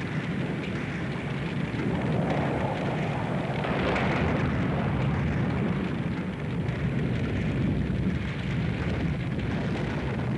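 Steady rumbling crash noise on an old film soundtrack, standing for a suspension bridge's deck breaking up and falling into the water. It swells a little about two seconds in, with no separate distinct impacts.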